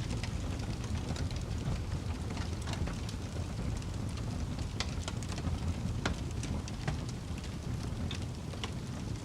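Fire crackling: a steady low rush of burning with irregular sharp pops and snaps, roughly one a second.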